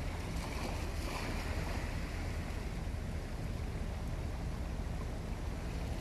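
Small harbour waves washing against a rocky shore, with a louder wash about a second in, over a steady low rumble.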